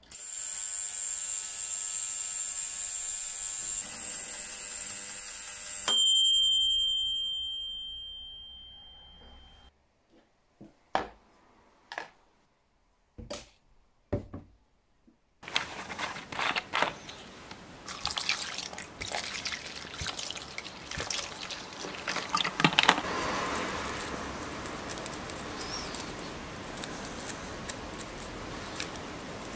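An ultrasonic cleaner running with a steady high whine and hiss, stopping about six seconds in as a ringing tone starts and fades away over a few seconds. A few separate clicks follow as a washing-up liquid bottle is handled, then from about halfway a small brush scrubbing a watch case in soapy water, a wet swishing dotted with little taps.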